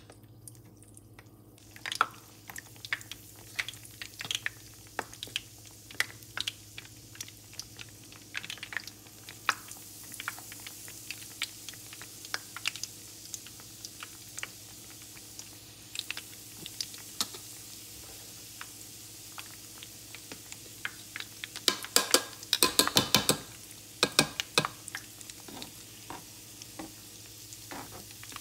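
Batter-coated saba banana slices frying in hot oil in a pan: a steady sizzle with scattered pops and crackles, and a dense flurry of crackling about two-thirds of the way through.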